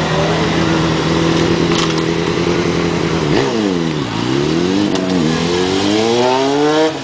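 Sport motorcycle engine held at steady revs, then the revs drop sharply about three seconds in and climb steadily again as the bike pulls away. The sound cuts off abruptly at the end.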